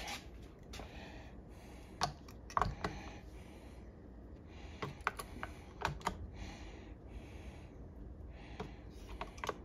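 Scattered small clicks and taps from plastic and metal smart-lock parts being handled and fitted, with soft rustling in between.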